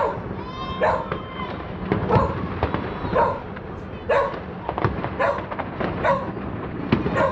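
Border Collie barking repeatedly, about once a second, against the bangs and crackle of fireworks.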